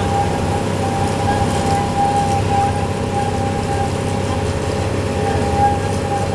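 Miniature park train running along its track, heard from an open passenger car: the small locomotive's engine runs steadily under a rumble from the wheels, with a steady high-pitched whine throughout.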